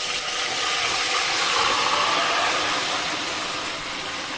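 Hot oil in a large pot sizzling loudly as curd-marinated chicken is poured in, a steady hiss that swells and then slowly eases.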